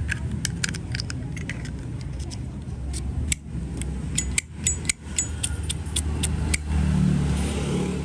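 Small metallic clicks and clinks of a Zippo Slim lighter being handled as its insert is pushed back into the chrome case: a run of light clicks, then a cluster of ringing metal clinks around the middle. A steady low rumble underneath.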